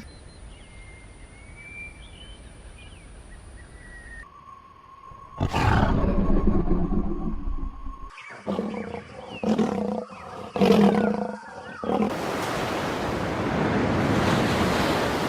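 Big cat roars and growls, spliced from several clips: a quiet stretch first, then loud roaring from about five seconds in, a few shorter roars, and a long loud breathy rush near the end.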